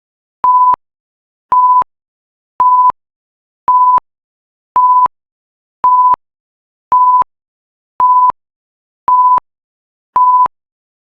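Electronic timer alarm beeping: short single-pitch beeps repeating about once a second, signalling that the countdown has reached zero.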